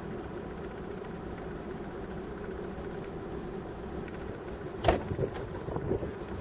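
A steady low mechanical hum, with one sharp knock about five seconds in and a few fainter knocks after it.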